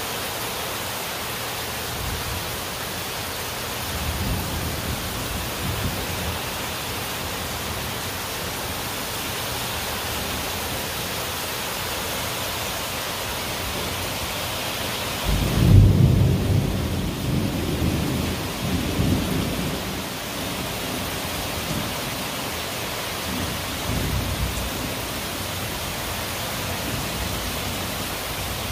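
Heavy rain falling steadily, with thunder: low rumbles about four and six seconds in, a loud thunderclap about halfway through that rolls on for several seconds, and another rumble near the end.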